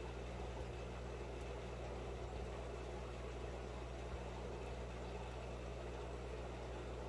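Steady low hum with an even hiss of bubbling from the aquarium's air pump and air stones.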